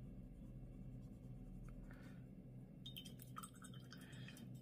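Faint strokes of a wet paintbrush on paper, activating watercolour-pencil swatches, over a low steady room hum. A few light clicks and taps come about three seconds in.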